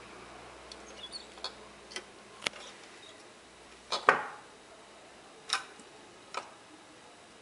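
Irregular light clicks and taps from handling small parts and gear at close range, about ten in all, the loudest a sharper tap about four seconds in.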